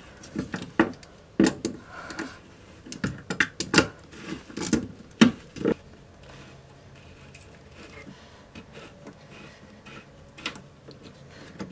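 Sharp clicks, knocks and clatter of hard plastic toilet-tank parts being handled and unscrewed, frequent for the first several seconds, then mostly quiet with a single knock near the end.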